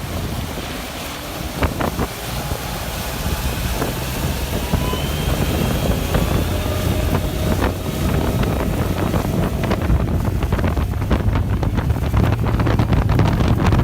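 Wind rushing over the microphone of a fast-running boat driven by a Tesla-based electric outboard, with a dense low rumble that grows slowly louder. A faint whine rises in pitch about halfway through, and in the second half there are many sharp knocks, like the hull slapping the water.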